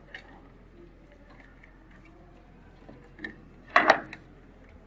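Plastic wire-harness connector being worked loose and unplugged from a washing machine's line filter board. A couple of faint clicks are followed near the end by a short burst of sharp plastic clicks and rattles as it comes free.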